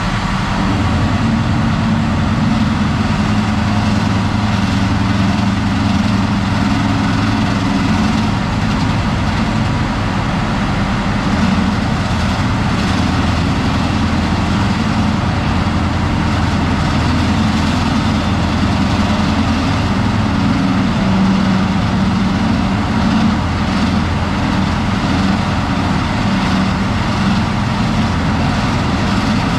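Heavy diesel engine of large logging equipment running steadily, a loud low drone whose pitch shifts slightly now and then.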